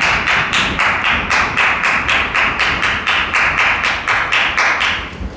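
Quick steady hand-clapping, about four or five claps a second, keeping pace for the exercise; it stops near the end.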